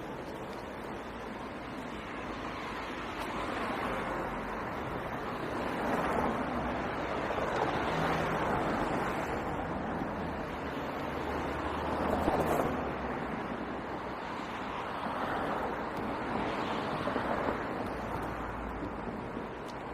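Road traffic passing: a steady wash of tyre and engine noise that swells and fades as vehicles go by, loudest about twelve seconds in, with a low rumble under the loudest passes.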